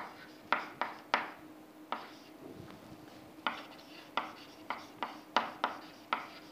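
Chalk tapping on a chalkboard as words are handwritten, a sharp tick with each stroke. A short run of ticks comes first, then a quieter pause of about two seconds, then a longer run of about nine ticks.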